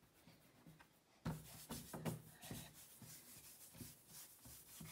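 Chalk scratching on a chalkboard in quick scribbling strokes, starting about a second in with a sharp tap and going on as rough, irregular scrapes and taps.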